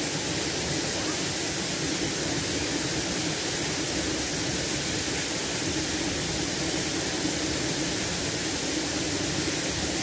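Waterfall pouring down a rock face into a pool: a steady, even rush of falling water.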